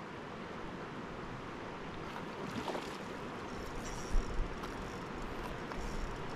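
Mountain river water rushing over rocks, a steady wash, with two brief low thumps about four seconds in.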